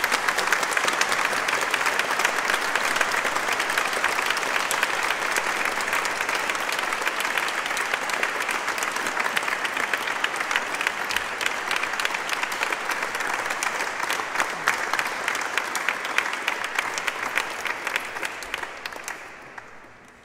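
Audience applauding, a steady wash of clapping that dies away near the end.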